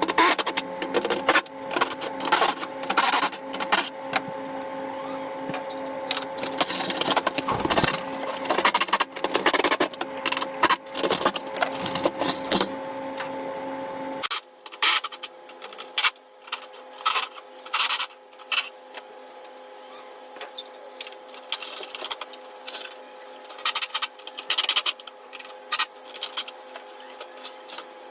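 Fast, dense mechanical clicking and clatter over a steady hum, from ratchet and hand work removing the grille nuts, played back sped up as a time lapse. The deep part of the sound drops out abruptly about halfway through.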